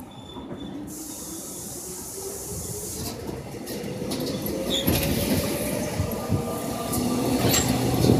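Korail Line 1 resistance-controlled electric train running, its traction motors' tone rising steadily in pitch as it gathers speed and getting louder, with a few sharp clicks of the wheels.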